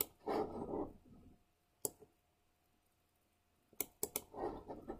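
Computer mouse clicking: a single click, another about two seconds in, then a quick run of three clicks near four seconds, with two short rubbing noises in between.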